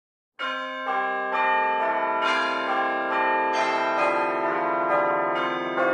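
Bells ringing a run of notes, about two strikes a second, each note left to ring on under the next. They start suddenly about half a second in.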